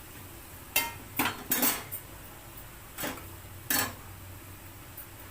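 A spoon stirring vegetables in a cooking pan, scraping and clanking against its side: three quick strokes about a second in, then two more.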